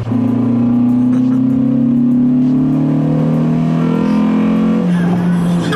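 Renault Clio 172's 2.0-litre four-cylinder engine pulling hard under full throttle, its open K-Tec induction kit loud, the pitch climbing steadily as it revs. About five seconds in the pitch drops.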